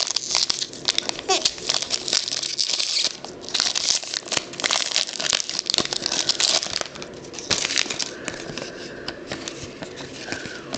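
Foil trading-card pack wrappers and cards being handled as packs are opened: quick, irregular crinkling and rustling, busiest through the first seven seconds and sparser after.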